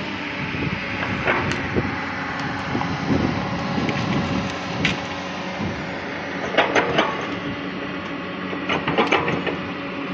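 A large engine running steadily under a wide, even noise, with a few sharp clanks about two-thirds of the way in and again near the end.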